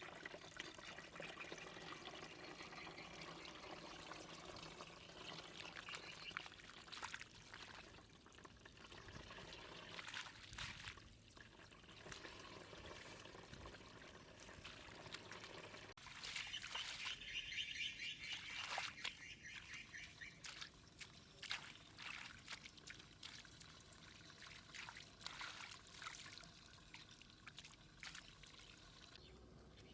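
Faint pouring and trickling water. About halfway through the sound changes abruptly, and many irregular short clicks and patters run over the water sound.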